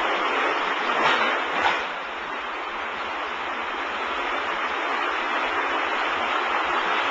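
Tilt tray sortation conveyor running: a steady rushing, rattling machine noise, with two short louder clatters about a second in.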